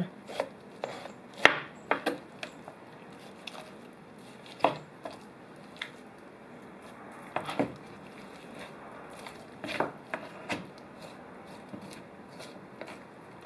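Knife chopping on a cutting board in irregular single strikes, the sharpest about one and a half seconds in.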